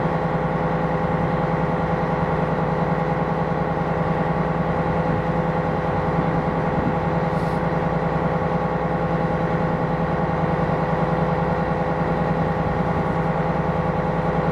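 Ship's diesel engine running at a steady speed: an even drone with a few constant hum tones that does not rise or fall.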